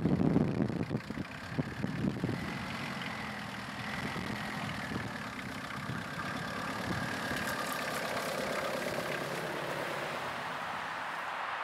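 A 4x4's engine running steadily as it drives slowly across rough grass. Wind buffets the microphone with loud gusts in the first couple of seconds.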